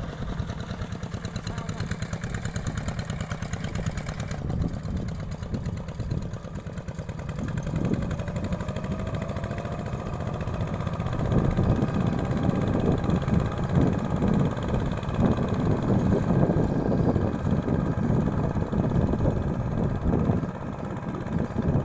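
Engine of a hand tractor plowing a rice paddy, running steadily with a rapid low pulse. It gets louder about eleven seconds in.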